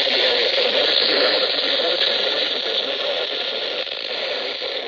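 Weather radio receiver hissing with loud static, easing slightly toward the end.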